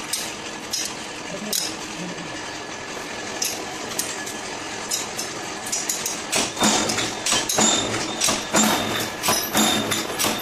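Mechanical power press, a 10-ton flywheel machine, clanking in a steady rhythm about twice a second from around six seconds in. Before that come a steady machine hum and scattered light metal clinks.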